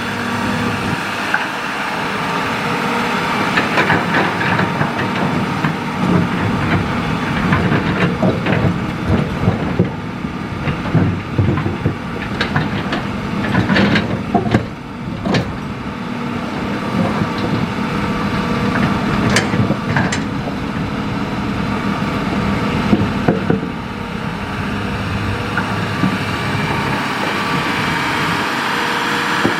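Hitachi excavator's diesel engine running steadily under digging load, with scrapes and clatters of the bucket in sand, gravel and stone, heaviest toward the middle.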